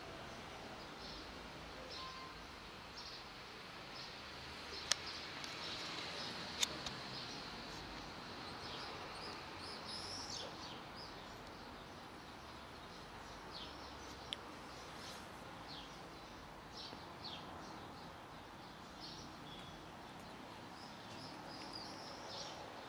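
Outdoor background noise with small birds chirping in short, high notes on and off throughout. Two sharp clicks come about five and six and a half seconds in, and a fainter one near the middle.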